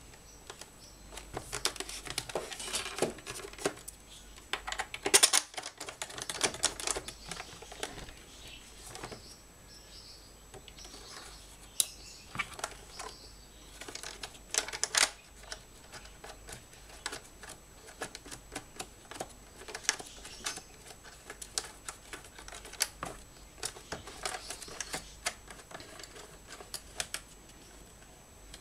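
Irregular clicks, knocks and rattles of plastic and metal parts being handled as an electric grass trimmer's plastic housing and shaft are put back together, with a cluster of louder knocks about five seconds in and sharp clicks near the middle. The motor is not running.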